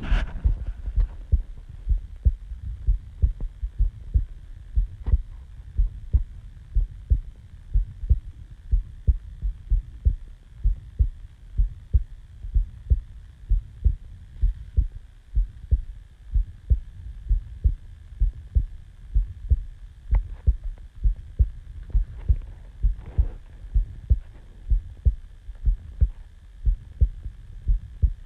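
A human heartbeat recorded up close: a steady, regular run of low thumps, with a faint steady hum underneath.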